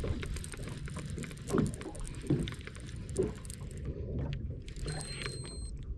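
Baitcasting reel being cranked, with fine clicking from its gears, over a steady low rush of wind and water against a small wooden boat. A few short creaks come through, the loudest about a second and a half in.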